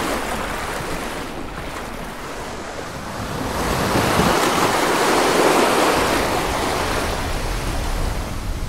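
Ocean surf: waves breaking and washing ashore as a steady rush, swelling about three seconds in and easing off toward the end.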